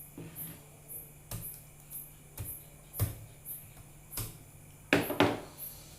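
A series of separate sharp knocks and clicks, about six of them, the loudest two close together near the end, over a steady low hum.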